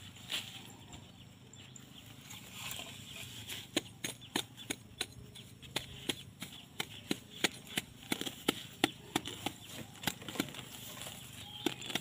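Machete blade striking and digging into dry soil and sticks: a run of sharp, irregular knocks, about two or three a second, starting about four seconds in.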